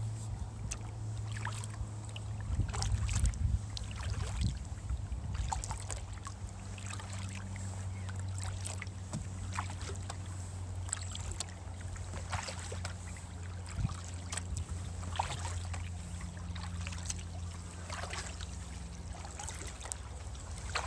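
Kayak paddle dipping into canal water, with irregular small splashes and drips about every second. A steady low hum runs underneath.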